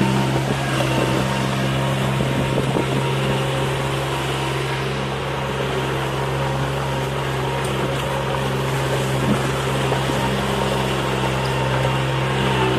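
Suzue M1503 small tractor's engine running at a steady speed, pulling a loaded trailer through deep mud.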